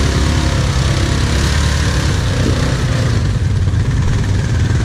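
ATV engines running at low revs: a quad idling close by while a Yamaha Grizzly 660 quad, a single-cylinder four-stroke, drives slowly out of a mud pit and passes close.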